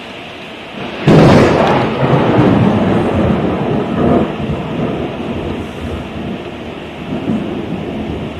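A close thunderclap over steady heavy rain. A sudden sharp crack comes about a second after the lightning flash, then a long rumble that swells again twice and slowly fades.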